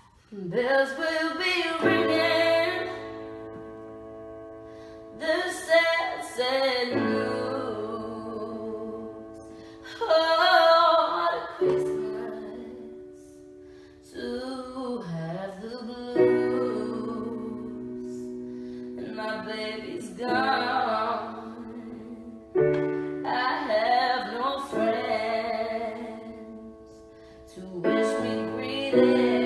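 A woman singing a slow ballad in short, held phrases, accompanying herself on a digital piano with sustained chords.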